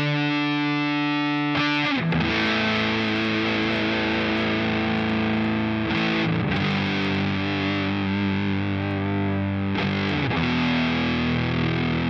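Electric guitar played through a JOYO Hot Witch, a Big Muff–style fuzz pedal, holding long fuzzed notes that change about every four seconds, with vibrato on the held notes.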